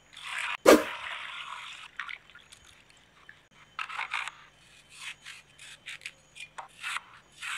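Water poured over whole apples in a glass bowl, with a sharp knock just under a second in and about a second of splashing. Then a kitchen knife cuts through a raw apple on a plastic cutting board in several short, crisp crunches.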